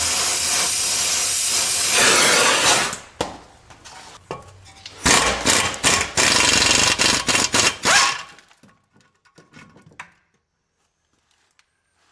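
A gas torch flame hisses steadily against the rusted muffler flange bolt for about three seconds, then stops. From about five to eight seconds in, an impact wrench runs in loud bursts on the heated nut, followed by a few light metal clicks.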